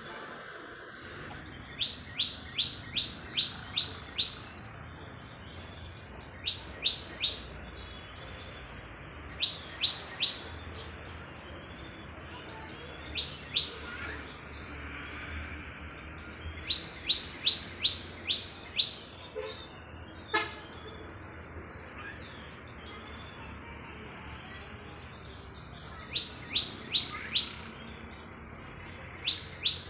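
Birds calling: quick runs of four to six sharp chirps every few seconds, with single short high notes between them, over a steady high-pitched whine.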